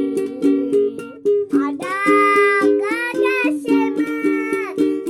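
A child singing held, wavering notes over a steadily strummed ukulele; the voice comes in about two seconds in, while the strumming keeps an even beat throughout.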